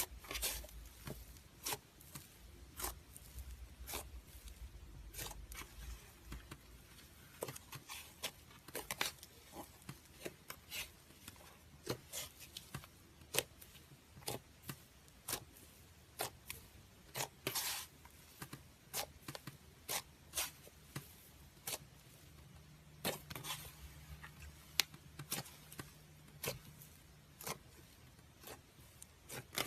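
Slime being squished and stretched, making irregular sharp clicks and short crackling pops, sometimes in quick runs.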